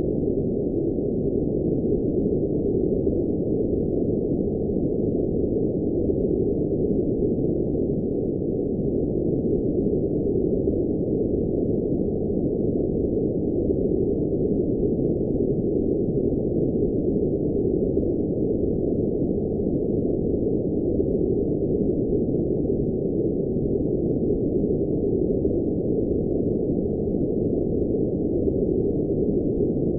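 Steady electronically generated noise: a muffled, deep hush with no high hiss at all, unchanging in level.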